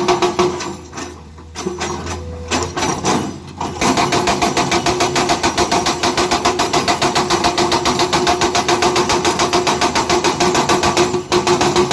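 Heavy construction machine's diesel engine running with a fast, even pulsing. It drops lower from about a second in and comes back loud and steady near four seconds.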